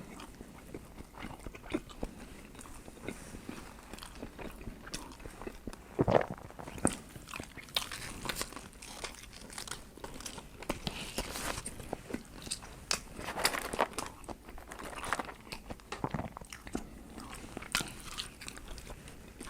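A person biting into and chewing a chicken sandwich close to the microphone: irregular wet mouth clicks, with a few louder bites scattered through.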